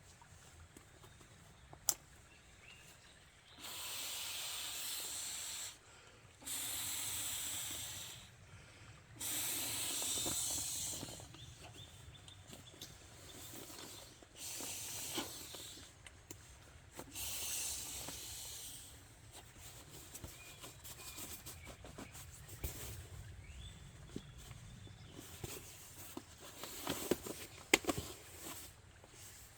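Hammock bedding being handled: nylon fabric rustling in several separate bursts of about two seconds each, followed by a scatter of small clicks and ticks near the end.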